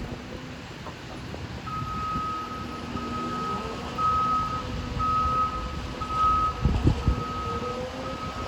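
A construction machine's backup alarm starts about two seconds in and beeps about once a second over a diesel engine that rises and falls in speed. A heavy thud comes near the end.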